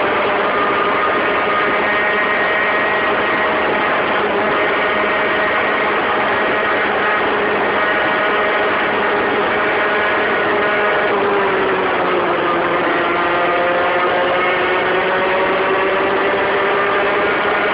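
Modified Peugeot 103 RCX moped's 50 cc two-stroke geared engine running hard at high revs while riding. The engine note dips about eleven seconds in and then climbs slowly back.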